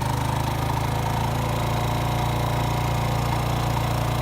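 A small engine running steadily at an even speed, cutting in abruptly at the start.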